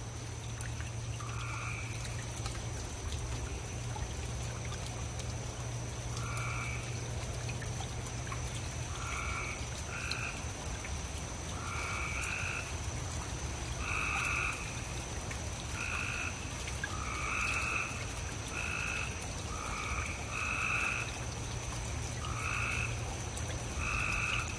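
Gray tree frogs calling back and forth, which the host takes for Cope's gray tree frog: short, harsh trills of about half a second, several frogs answering one another roughly once a second. Rain drips off a porch roof behind them, over a steady low hum.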